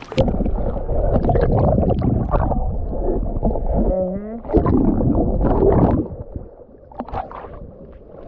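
Seawater sloshing and gurgling over a camera held at and just under the surface, a loud muffled rumble that drops away about six seconds in.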